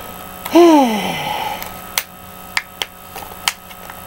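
A woman's voiced sigh, falling in pitch, about half a second in, followed by a few small clicks of plastic toy parts being handled.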